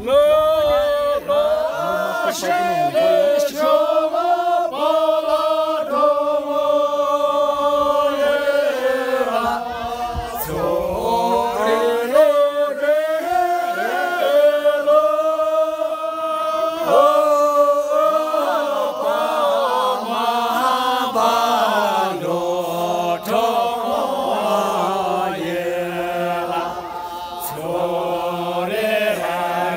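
A group of men singing together in unison, unaccompanied, with long held notes that step slowly up and down in pitch.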